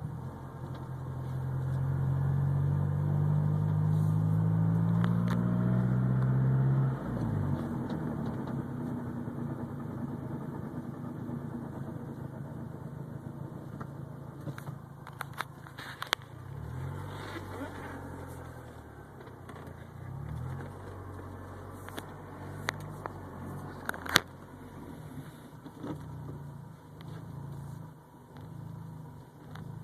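Mazdaspeed6 car engine rising steadily in pitch for about six seconds, dropping off abruptly, then running unevenly with repeated small rises and falls and scattered sharp clicks.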